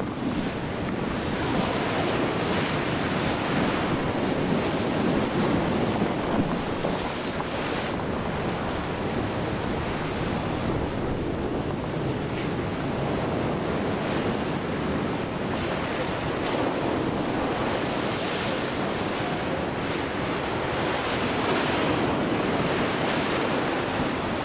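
Ocean surf and wind rushing steadily at a lava ocean entry, with wind buffeting the microphone.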